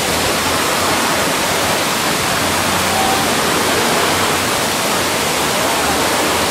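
Steady, loud, even hiss spread across all pitches, with a faint low hum underneath.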